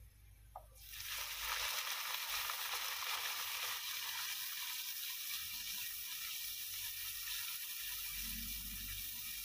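Food sizzling in hot oil in a cooking pot, starting suddenly about a second in and then running steadily.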